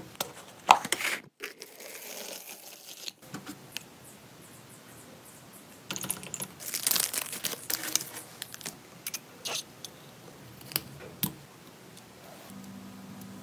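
Workbench handling sounds: a glass jar set down on a wooden tabletop with a few sharp knocks, then a wooden stir stick scraping and clicking inside a plastic mixing cup as it stirs a liquid. A faint steady hum comes in near the end.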